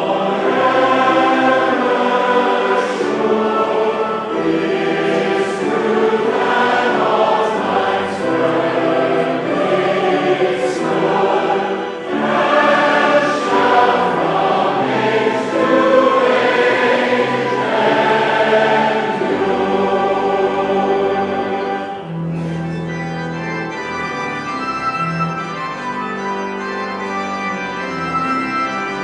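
Church choir singing in parts with organ accompaniment. About 22 seconds in the voices stop and the organ plays on alone.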